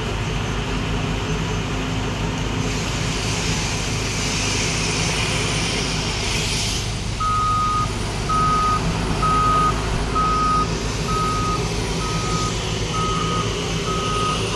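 Heavy diesel construction vehicle's engine running steadily. About halfway through, its reversing alarm starts beeping about once a second, and a hiss comes shortly before the beeping.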